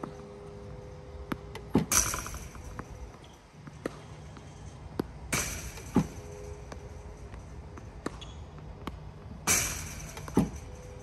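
Tennis Tutor ProLite battery-powered ball machine firing tennis balls about every four seconds: three launches, each a loud pop followed by a short hiss. Sharp single knocks come between them as balls strike the court or a racket, over a low steady hum.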